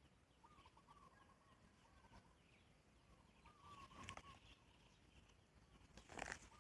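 Faint bird calls, a short warbling phrase repeated every second or two, over a quiet outdoor background. A brief rustle of leaves about four seconds in and again near the end.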